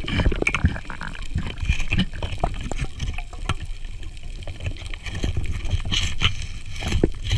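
Underwater water noise heard through the camera: a steady low rumble and gurgle of moving water with many scattered sharp clicks and crackles.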